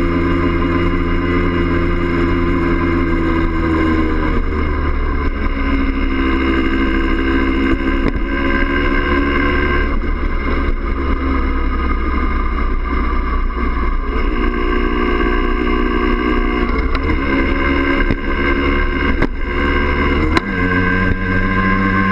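Yamaha DT50M's 50 cc two-stroke single-cylinder engine running at cruising speed on the move. Its note changes pitch about four seconds in and again twice near the end.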